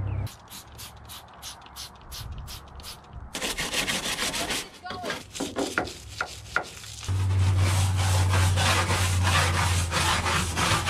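A small stiff hand brush scrubbing a pickup's tailgate and bed-liner edges: even back-and-forth strokes about three a second, then faster, louder scrubbing with a few short squeaks. A steady low hum joins in for the last few seconds.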